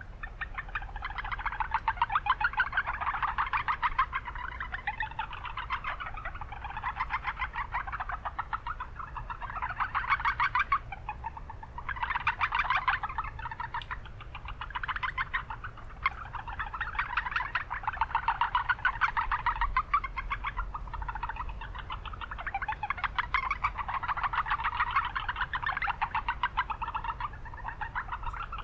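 Japanese brown frogs (Rana japonica) calling in chorus: rapid trains of short pulses overlap and swell and fade, with no pause. A steady low rumble of town noise runs underneath.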